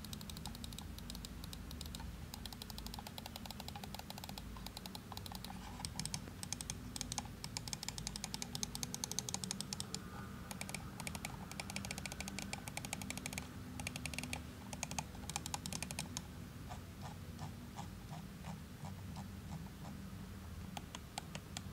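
Scroll wheel of a ROCCAT Pure Air wireless gaming mouse being rolled, giving quick runs of light ticks through most of the stretch. The ticks thin out into slower, duller single clicks in the last few seconds.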